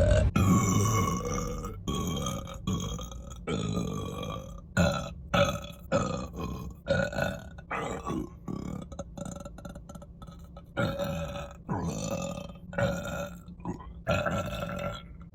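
A woman belching over and over: one long burp at the start, then a quick run of many shorter burps, one after another.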